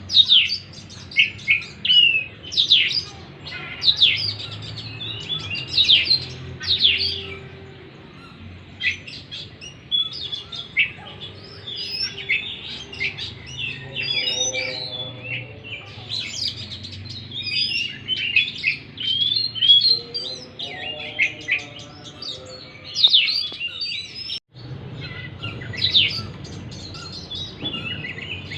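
Oriental magpie-robin (kacer) singing a fast, varied song of sharp whistles and sweeping notes, broken by bursts of rapid chattering.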